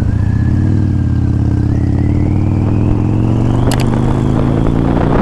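Harley-Davidson Dyna Low Rider's air-cooled V-twin engine running while riding. Its pitch rises steadily over a couple of seconds as the bike speeds up, then holds.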